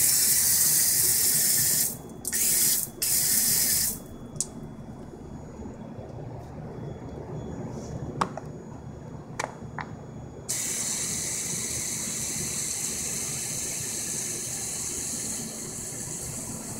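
Water spraying hard from a hose spray nozzle into a sink: one long blast, then two short ones, over the first four seconds. After a quieter stretch with a few clicks, a steady hiss of water flowing starts about ten seconds in, as a battery watering gun fills a forklift battery cell.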